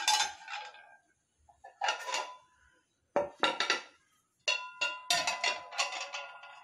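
Metal pans clanking against the metal rods of a kitchen pan rack as they are set in place, each knock ringing briefly: a few separate clanks, then a quicker run of clinks in the last two seconds.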